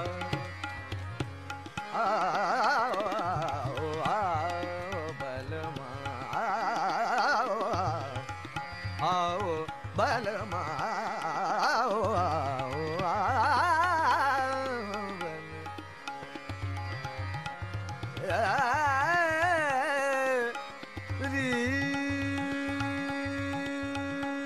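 Background Indian classical music: a wavering, richly ornamented melody in several phrases over tabla, settling into one long held note near the end.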